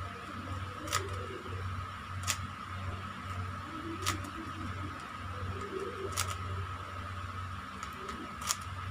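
Plastic layers of a stickerless 3x3 puzzle cube being turned by hand, with about five sharp clicks at irregular intervals as the layers snap round, over a steady background hum.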